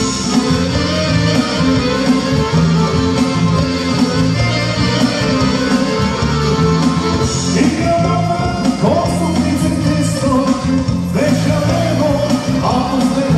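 Electronic arranger keyboard playing a dance song with a steady beat and backing accompaniment, with a man's singing voice coming in about halfway through.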